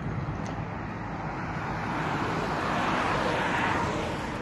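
Road traffic: a vehicle passes, its noise swelling about two seconds in and fading near the end, over a steady low rumble.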